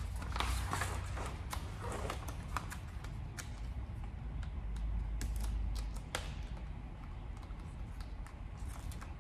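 Black vinyl wrap film and its backing paper being handled and laid onto a car bumper: irregular crinkling, crackling and small taps, over a low steady hum.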